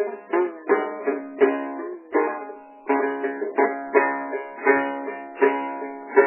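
A plucked string instrument playing a slow melody in single notes, about two a second, each note struck sharply and left to ring and fade: the instrumental accompaniment of a Tai folk song between sung lines.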